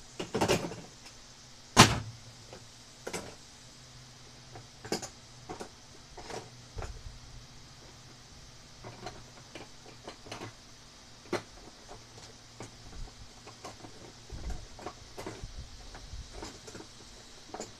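Irregular metal clicks and light knocks of a screwdriver working a grille screw into its anchor, with one sharper knock about two seconds in. A faint steady hum runs underneath.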